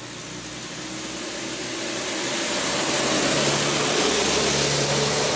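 A vehicle passing by: engine and road noise grow steadily louder to a peak about four seconds in, then begin to fade.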